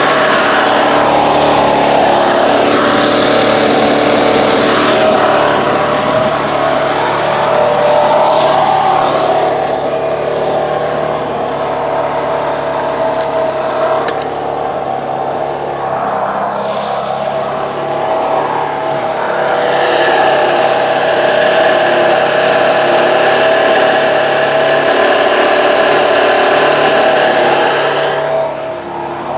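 Portable gasoline generator engine running steadily, its tone shifting a few times.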